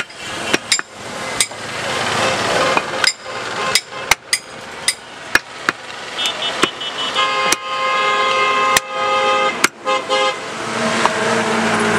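Heavy butcher's cleaver chopping goat meat and bone on a wooden log block: about fifteen sharp, irregular blows. A vehicle horn sounds for a couple of seconds past the middle, over steady street traffic noise.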